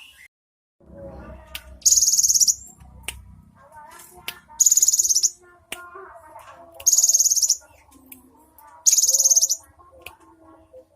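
Cinereous tit (gelatik batu) singing: four high, rapid rattling trill phrases, each under a second, repeated about every two seconds, with fainter lower chirps between them.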